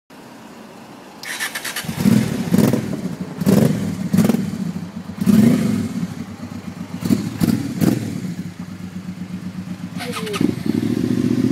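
Japanese V-twin motorcycle engine cranked on its electric starter and catching about two seconds in, then blipped with a series of short throttle revs before settling into a steady idle near the end.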